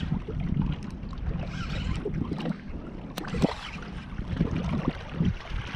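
Wind on the microphone and water lapping against a boat's hull, with a couple of sharp clicks about three seconds in.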